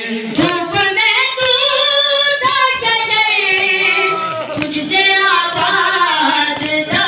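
A noha, a Shia lament, sung by a reciter in long held notes that glide and waver in pitch.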